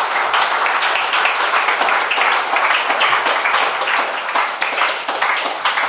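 Audience applauding: many people clapping together, a steady dense patter of hand claps.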